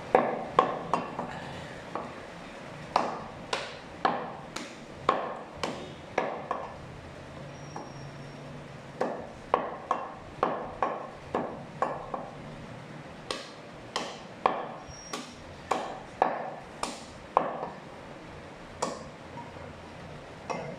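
Meat cleaver chopping goat meat on a round wooden chopping block: sharp chops in quick runs of several strokes with short pauses between, the longest pause about a third of the way in.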